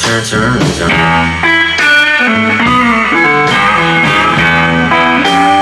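Live blues trio playing: a guitar fill between sung lines, over double bass and drums.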